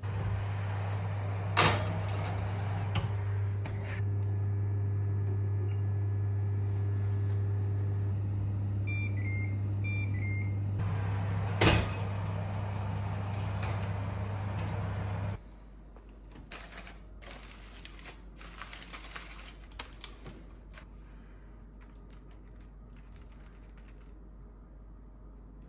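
Electric fan oven running with a steady hum while the oven controls beep and a metal roasting dish clanks onto the oven rack, sharply twice. The hum cuts off suddenly about halfway through, leaving only light crinkles and clicks of chopsticks opening a foil parcel.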